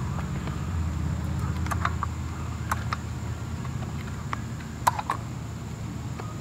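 Scattered clicks and light knocks from a caulking gun's trigger and from handling a cardboard fireworks cake as Liquid Nails construction adhesive is squeezed onto its base. A pair of sharper clicks comes about five seconds in. A steady low hum runs underneath.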